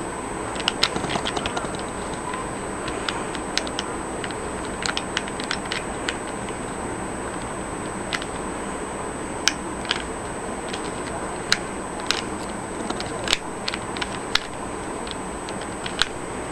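Irregular sharp plastic clicks of a corner-less Rubik's Cube (edges and centres only) being twisted layer by layer, over a steady background hiss.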